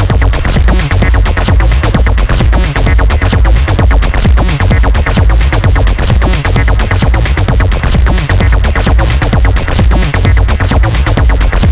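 Loud electronic dance music with a heavy bass and a steady fast beat.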